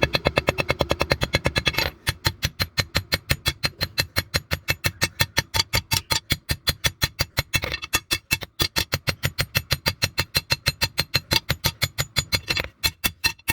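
Rapid, even hammer blows on hot leaf-spring steel, about five or six a second, typical of a mechanical power hammer drawing out the cleaver blank; the blows pause briefly a couple of times.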